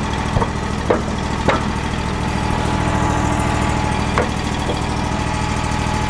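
Hydraulic sawmill's engine idling steadily, with four sharp knocks as a log is turned over on the mill's steel bed.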